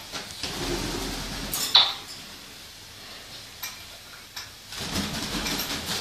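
Macaw flapping its wings on a rope perch while being bathed with a spray bottle, in two bouts of wing flutter, with a sharp brief clatter just under two seconds in and scattered light clicks.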